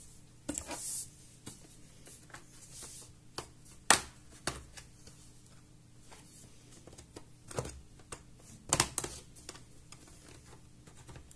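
Prying the bottom case off an Asus Vivobook S15 S530 laptop: scattered sharp clicks as the tool works along the case edge and the cover's clips release, with a rustle of handling near the start and a cluster of clicks near the end.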